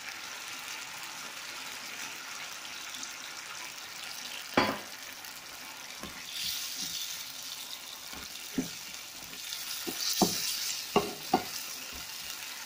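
Chicken curry with potatoes and carrots sizzling and simmering in a nonstick pan, stirred with a wooden spatula. The spatula knocks sharply against the pan once about a third of the way in and several more times in the second half.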